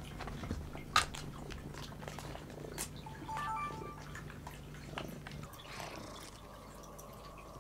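A cat purring steadily, which stops about five and a half seconds in, with a few sharp crinkles from a foil packet of crispy cat treats being shaken as a lure.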